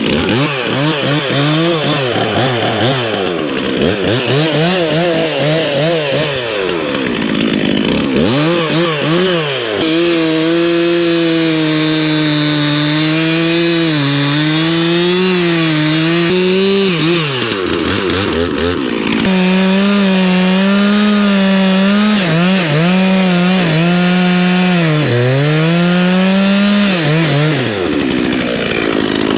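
Two-stroke chainsaw running: revved up and down several times, then held at high revs through cuts in wood, the pitch dropping and recovering as the chain loads in the timber.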